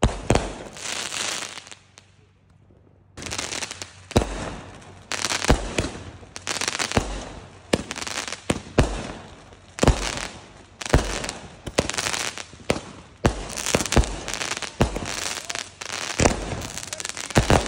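Aerial fireworks going off: one sharp bang, a short lull, then a fast string of bangs about one or two a second from about three seconds in, each followed by crackling.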